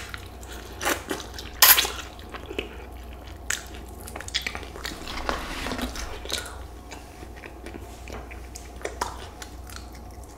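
Close-up biting and chewing of a crispy fried chicken wing: scattered crunches and small clicks, the loudest about two seconds in.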